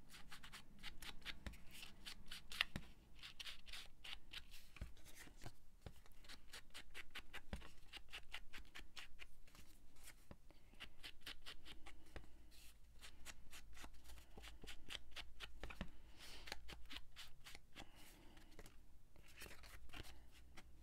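Rapid dabbing and rubbing of ink onto the edges of a paper tag, many quick scuffing strokes in runs with brief pauses, darkening the edges to give the tag an aged look.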